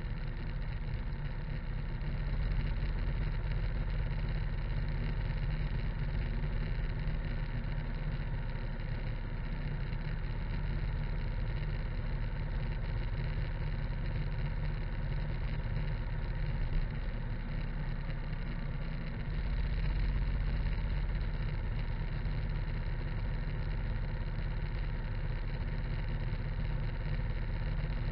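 Harley-Davidson V-twin motorcycle cruising steadily on the highway. The engine's drone is mixed with wind rush on the low-mounted microphone and tyre noise on the asphalt.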